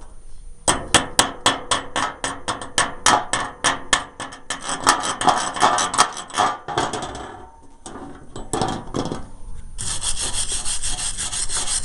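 Rhythmic scraping strokes, about three a second, that grow looser and fainter after about six seconds. Near the end comes a steady hiss lasting under two seconds.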